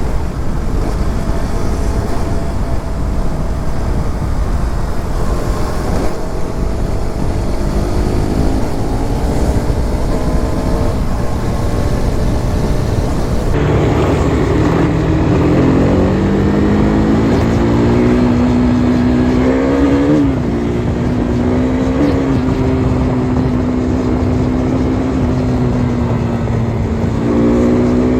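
KTM RC 390's single-cylinder engine running on the move. A loud rushing noise half covers the engine note at first. About halfway through the engine comes up clearly, its note rising and then holding steady with two short blips, and climbing again near the end.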